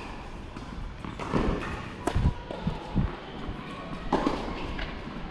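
Tennis balls thudding on a hard court: a few separate bounces and racket hits, the two loudest about a second apart near the middle.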